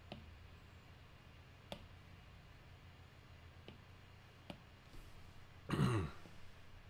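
Stylus tapping on an iPad's glass screen: a handful of light, sharp taps a second or so apart. Just before the end, a short vocal sound from a man, falling in pitch, is the loudest thing.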